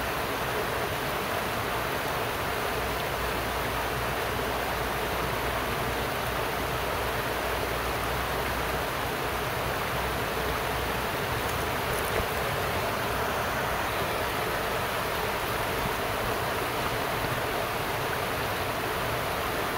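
Steady rushing of a fast, muddy river running high after days of rain, flowing over rocks and small rapids.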